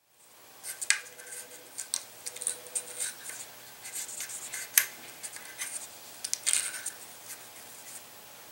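A cotton-tipped bamboo cleaning swab scraping and rubbing against the metal locking lugs of an AR-15 barrel extension: an irregular run of short, scratchy clicks and scrapes. The sharpest click comes just before five seconds in.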